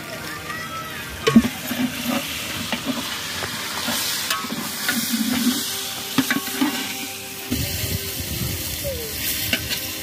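Potato pieces sizzling in oil in a large aluminium pot while a metal ladle stirs them, scraping and clinking against the pot, with a sharp knock about a second in.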